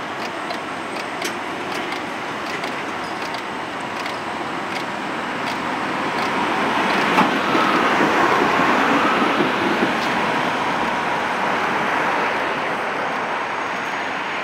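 Tatra T2 tram pulling away from a stop and passing close by: its motors and steel wheels on the rails grow louder to a peak about seven seconds in, with a ringing note from the wheels, then fade as it moves off. A series of sharp ticks comes in the first few seconds.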